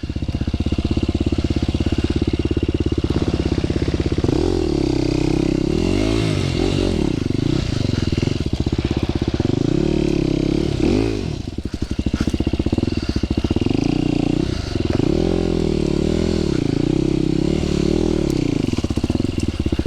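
Dirt bike engine running along a trail, steady for the first few seconds, then revving up and dropping back again and again as the throttle is worked.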